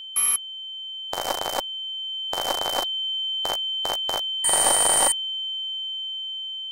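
A steady, high electronic sine tone, cut across by seven short bursts of static-like noise at uneven intervals. The last and longest burst comes about four and a half seconds in. After the bursts stop, the tone fades away.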